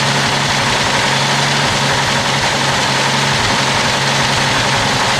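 Jeep CJ7's 4.2-litre straight-six idling steadily while warming up, running with a misfire on cylinder number 5, which the owner puts down to a stuck lifter.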